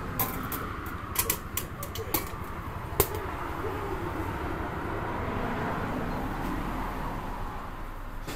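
Light clicks and knocks from a vending machine's hinged metal delivery flap and a bowl of udon lifted out of the hatch, ending in one sharp clack about three seconds in as the flap snaps shut, over steady background noise.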